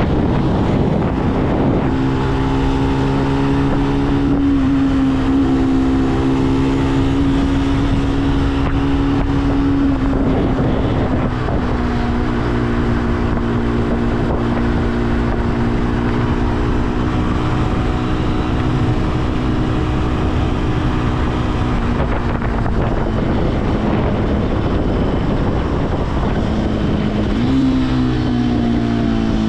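Benelli BN125's single-cylinder four-stroke engine running under way, with wind noise on the microphone. The revs climb about two seconds in, drop around ten seconds, hold steady for a long stretch, ease off after about twenty-two seconds, then rise again near the end.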